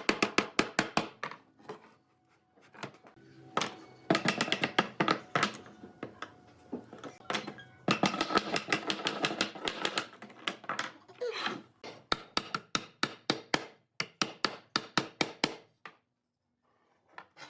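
Rapid sharp taps on wood, about five or six a second, in runs of a few seconds broken by short pauses.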